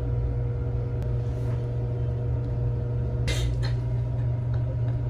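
A steady low hum with a faint constant higher tone, and one brief faint click a little over three seconds in.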